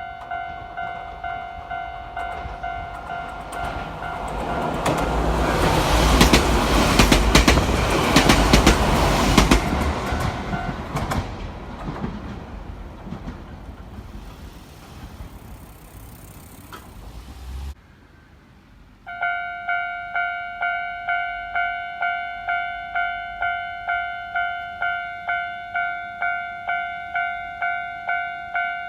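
Railway level crossing warning bell ringing in steady repeated strikes while a Nagano Electric Railway 1000 series 'Yukemuri' express train passes, its rumble and wheel clatter swelling and then fading. The sound cuts off suddenly, and about a second later the crossing bell starts ringing again at about two strikes a second, warning of the next train.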